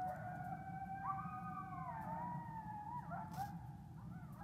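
Animal howling: long held, wavering tones that slide up about a second in and back down near two seconds, breaking into shorter warbles near the end.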